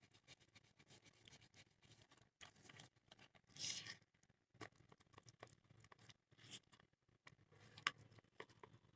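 Near silence, broken by faint scattered clicks and a brief rustle about three and a half seconds in, from craft materials and a container being handled.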